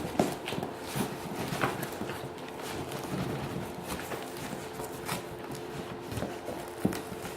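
Cardboard scraping and rustling with irregular knocks and bumps as a 1x12 tube combo amp is worked out of its cardboard shipping box, with a sharper knock just after the start and another near the end.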